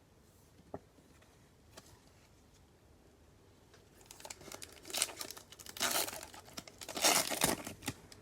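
Plastic trading-card pack wrapper being torn open and crinkled in several bursts over the last four seconds, after a few faint clicks.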